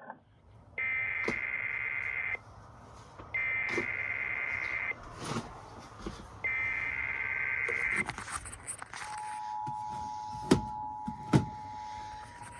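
Emergency Alert System SAME header: three bursts of raspy digital data tones, each about a second and a half long. About nine seconds in, the steady two-tone EAS attention signal begins, marking the start of a relayed alert message. Two sharp clicks come during the tone.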